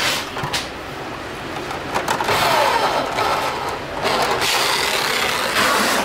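Corded electric drill driving screws into a plastic washing-machine frame, its motor running in several short runs, the pitch rising and falling as it speeds up and slows.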